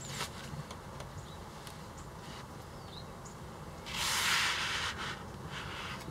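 Sugimoto slicer's long blade drawn through a rolled-up terry towel: one slicing stroke about four seconds in, lasting about a second, then a shorter, fainter stroke near the end.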